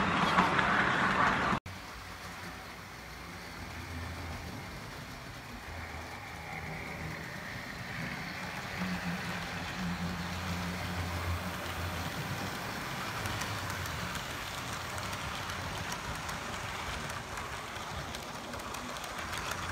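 Model train running along the layout's track: wheels rumbling on the rails with a low electric-motor hum. The sound is louder for the first second and a half as coaches pass close by, then drops sharply to a quieter steady run, with the hum swelling in the middle.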